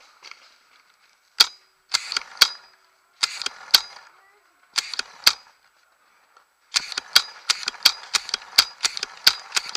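Paintball marker shots. Single and paired pops come over the first five seconds, then rapid fire at about five shots a second from about seven seconds in.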